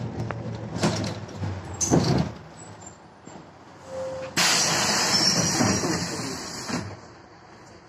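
Inside an Ikarus 280 bus: knocks and rattles of the moving bus, then about four and a half seconds in a sudden loud hiss of compressed air lasting a couple of seconds, the air brakes venting as the bus pulls up at a stop.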